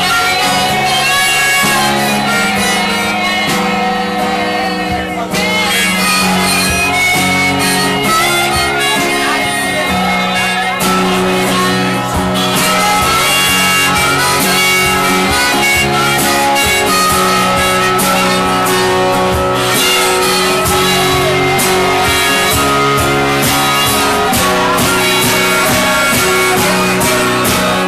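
A harmonica held in a neck rack, played in long held notes over a strummed acoustic guitar.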